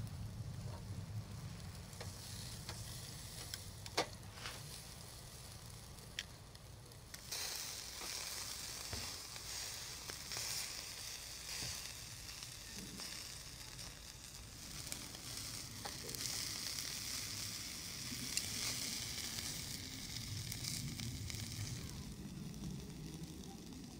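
Tomahawk steak sizzling on a grill grate, a steady hiss with a few sharp pops of fat. The sizzle grows louder about seven seconds in.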